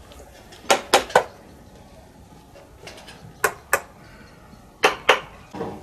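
Sharp knocks and taps of work on a handmade wooden toy tractor, in quick groups of two or three.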